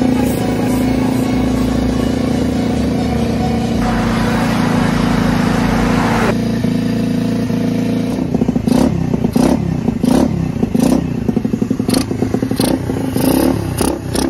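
A dirt bike's small single-cylinder four-stroke engine runs steadily. From about eight seconds in, the throttle is blipped repeatedly, the revs rising and falling about twice a second.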